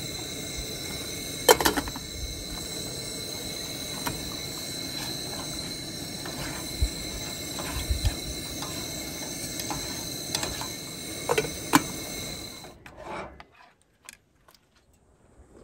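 Two-burner camp stove burner hissing steadily under a pot of chicken stew, with a few sharp clinks of a spoon against the pot. The hiss stops abruptly near the end, as the pot comes off the stove.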